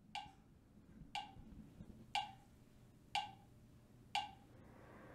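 Test pings from an audio/video sync test video played through a soundbar, one about every second, each a sharp click with a brief tone. They are the timing marks for measuring the soundbar's audio latency, meant to land as the white ball touches the platform on screen.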